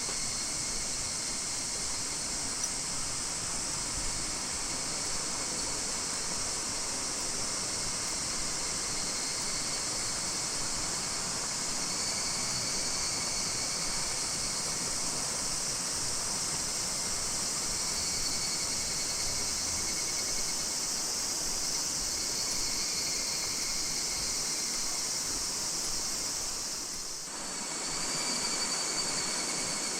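Chorus of higurashi (evening cicadas, Tanna japonensis) calling, a steady high-pitched shrilling that dips briefly near the end.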